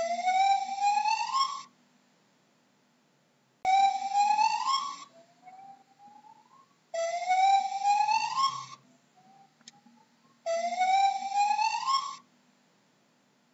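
Gibbon calling: four long rising calls, about one every three and a half seconds, each led in by a fainter, shorter rising note.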